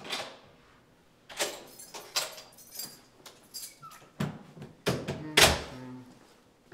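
Heavy hallway door with a closer opening, with a run of latch and handle clicks, then swinging shut with a deep thud about five and a half seconds in.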